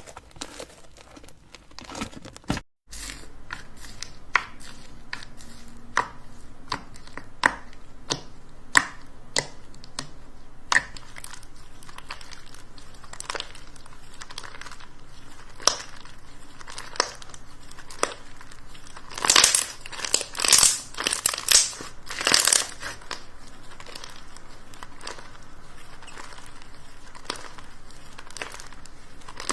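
Slime being handled, with scattered sharp pops and clicks, then a run of louder crackling squishes for a few seconds past the middle.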